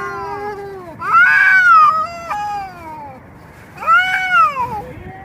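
A cat meowing repeatedly: a string of drawn-out meows that rise and then fall in pitch, the loudest about a second in and again about four seconds in.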